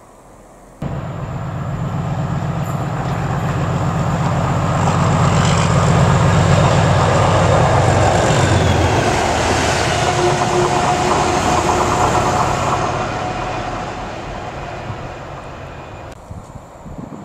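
Diesel locomotives passing close by: a steady low engine drone with rumbling wheel and rail noise that builds to a peak about halfway through. The engine drone drops away after the middle and the rumble fades as they move off.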